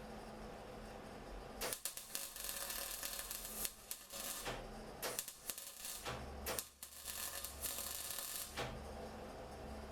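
About six bursts of harsh crackling and rasping from hand work on the steel car chassis, each one to two seconds long with short breaks between, over a steady low hum.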